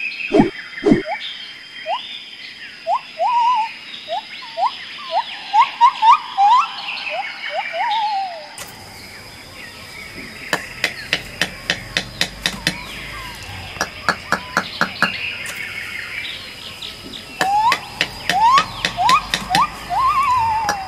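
Bird-like chirps and whistles that slide up and down, over a steady high-pitched tone. About nine seconds in, a quick run of sharp clicks and taps joins, and the sliding calls come back near the end.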